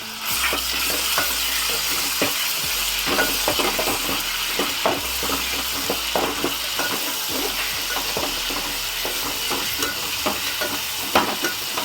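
Ginger-garlic and coriander masala paste sizzling in hot oil in a pot while it is stirred and sautéed, the stirring utensil scraping and clicking against the pot over and over.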